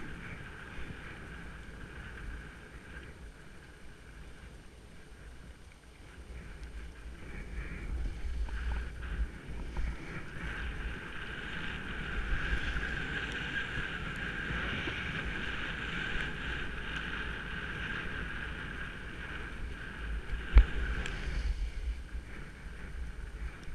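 Skis hissing through fresh powder snow while skiing downhill. The hiss grows louder from about eight seconds in as speed builds, over a low wind rumble on the microphone, and there is a single sharp knock near the end.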